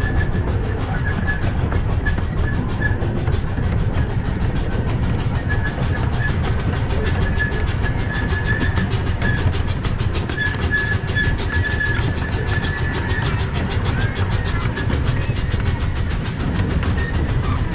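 Miniature steam train running along its track: a steady rumble and rattle of the moving train, with an on-and-off high, thin squeal.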